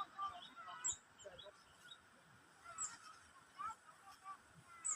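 Birds calling with many short, high chirps and squeaks, several overlapping.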